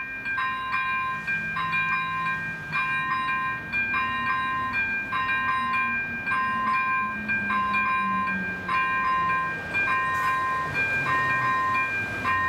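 Electronic bell of an AŽD 97 level-crossing warning signal ringing steadily, a multi-tone ding repeated a little more than once a second, the sign that the crossing is closed for an approaching train. A faint low drone sits underneath.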